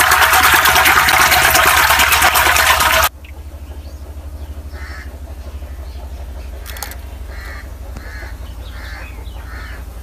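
A loud rushing noise cuts off abruptly about three seconds in. It leaves a steady low hum, over which a bird gives about six short calls.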